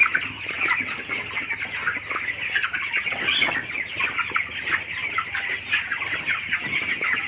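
A large flock of 21-day-old broiler chickens peeping and cheeping all at once, a dense, steady chatter of many short calls with no let-up.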